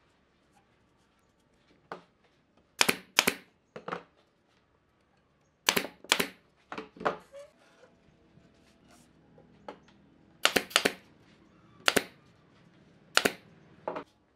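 Sharp wooden clacks and knocks, irregular and often in close pairs, as wooden strips and small wooden spacer blocks are handled, laid against each other and set down on the workbench.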